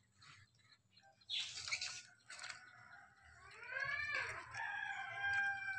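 A rooster crowing once, starting about three seconds in: one long call that rises and then holds, slowly sinking. Before it, a short rustling noise about a second and a half in.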